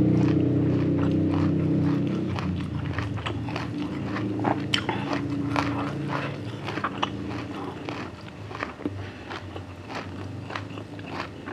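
Close-up chewing of a mouthful of crunchy red-ant miang, with many small crisp crunches at an irregular pace. A low steady hum fades out over the first two seconds.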